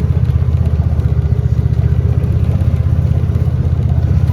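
A farm vehicle's engine running steadily close by, with a fast even throb.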